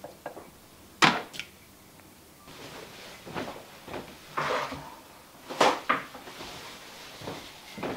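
Kitchen handling sounds: a few sharp knocks and clatters, and short rustles as paper towel is pulled and torn from a countertop holder.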